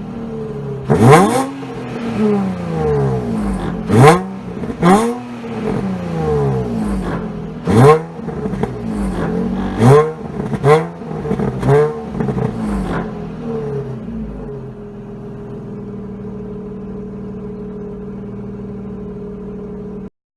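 2007 Nissan 350Z's VQ35HR 3.5-litre V6 revved in quick blips, its pitch jumping up and falling back about seven times, then settling to a steady idle for the last several seconds.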